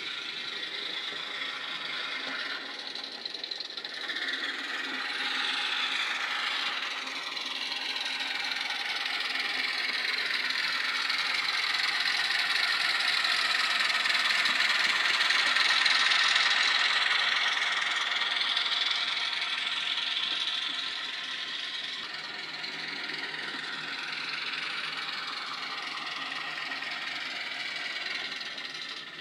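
Sound from the speaker of an OO-gauge Ruston & Hornsby 88DS model shunter: an ESU LokSound decoder playing a German Kö I diesel sound file, a rough, mechanical small diesel engine running. It grows louder to a peak about halfway through as the loco passes close, then fades as it moves away.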